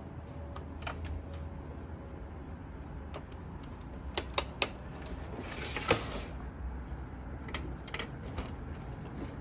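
A series of sharp, irregular clicks and knocks, three in quick succession about halfway through, with a short hiss just after, over a low steady hum.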